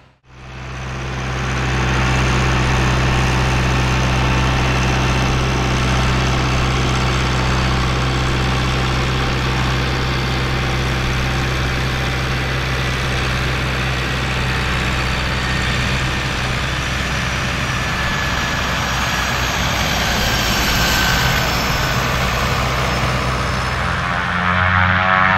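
Pratt & Whitney PT6A turboprop engine of an Air Tractor AT-402 crop duster running steadily on the ground, with an even low hum from engine and propeller. The sound fades in over the first couple of seconds.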